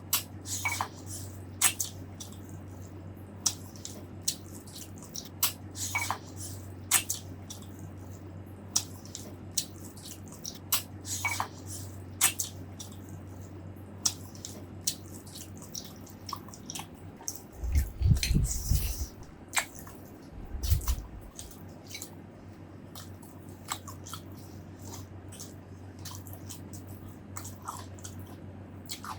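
Close-miked eating: a person chewing, with many short, sharp, wet mouth clicks and smacks over a steady low hum. Two low thumps come about two-thirds of the way through.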